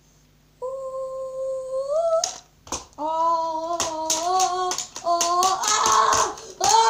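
A child's voice making sung, humming sound effects in play: long held notes that step and glide in pitch, louder and rougher near the end, with sharp clicks of plastic action figures knocking together.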